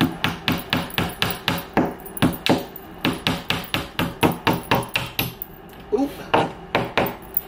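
A small hammer driving a nail into a wall: a quick run of sharp strikes, about three a second, then a short break and a few more blows near the end.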